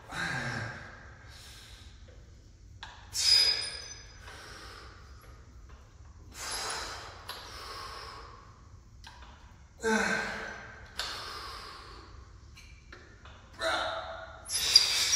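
A man's hard exhalations and short grunts of effort, one roughly every three to four seconds, in time with his barbell curl repetitions. A couple of faint metallic pings sound from the loaded bar.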